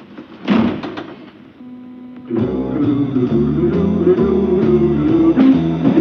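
A brief clatter about half a second in. About two seconds later the closing theme music starts, with a stepping bass line under a melody.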